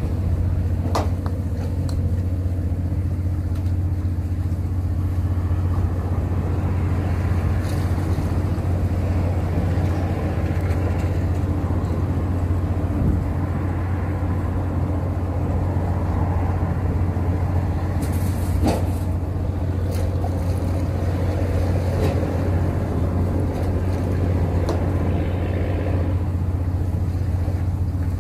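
An engine running steadily, a constant low drone, with occasional light knocks over it.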